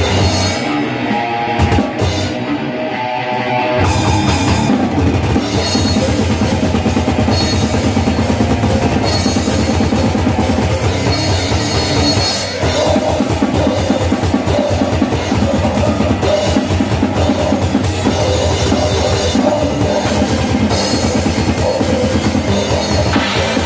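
Rock band rehearsing: a drum kit played hard under electric guitar. The first few seconds are sparser, then from about four seconds in a fast, dense beat with rapid bass-drum strokes comes in.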